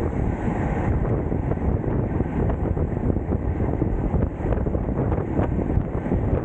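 Wind buffeting the microphone: a loud, steady, rumbling rush with no break.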